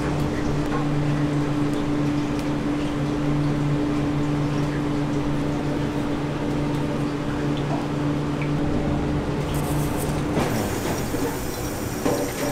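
Steady electric hum of running kitchen machinery, two fixed tones under a constant background noise. About ten seconds in, the lower tone stops and a bright hiss begins.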